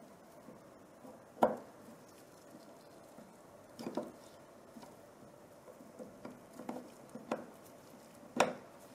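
Metal cylinder pipes being handled and seated into a compressor valve-head block: a few light clacks and taps of metal parts, the sharpest about one and a half seconds in and just before the end.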